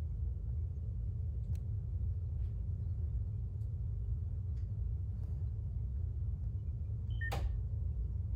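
Low, steady rumbling drone from an analog-horror video's soundtrack, with faint scattered clicks and a brief sharp click with short high beeps about seven seconds in.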